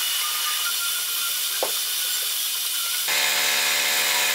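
Mini metal lathe running while a 3.25 mm twist drill in the tailstock chuck drills the tapping hole for an M4 thread into a spinning brass piston blank, a steady hiss of motor and cut. About three seconds in it gets a little louder and takes on a pitched hum.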